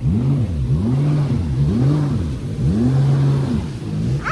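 Personal watercraft (jet ski) engine revving up and down over and over, its pitch rising and falling about once every second.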